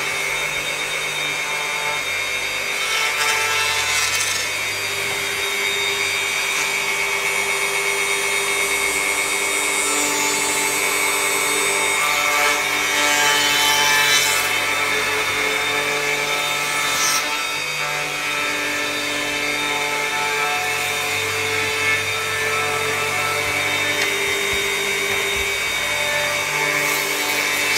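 Electric router running steadily with a high whine while its bit cuts across a wooden slab, planing it flat from a sled. The cutting noise grows louder a few times as the bit bites harder.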